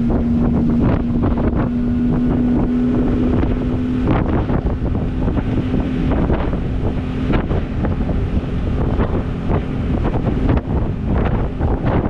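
Mercury 200 hp outboard running under way on a tritoon, a steady engine tone under heavy wind buffeting on the microphone. About four seconds in the engine tone drops back and the wind takes over.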